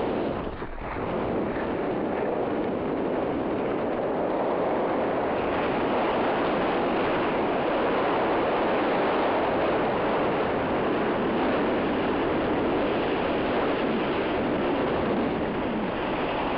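Steady rushing noise of a skier going downhill: wind over the microphone mixed with skis running on snow, dipping briefly just under a second in.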